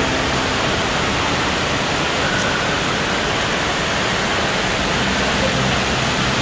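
Steady rushing din of a large indoor waterpark: falling and splashing water from the slides and play structures mixed with the noise of the crowd, even and unbroken throughout.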